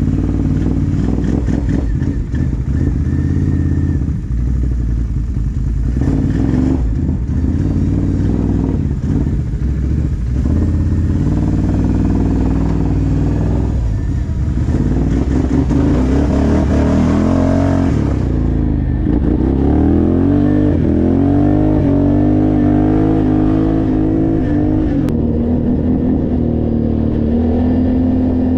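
Can-Am ATV engine running while riding off-road, its pitch rising and falling as the throttle opens and closes. Rattling and a rushing hiss run under it for about the first two-thirds, then the engine's rising and falling tones stand out more clearly.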